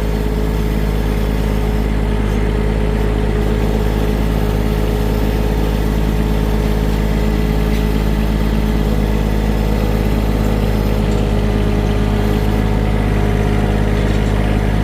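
Vehicle engine running loud and steady at a constant speed, with no change in pitch.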